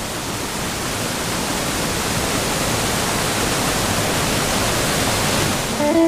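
Waterfall pouring steadily over rocks into a plunge pool, an even rushing hiss of falling water.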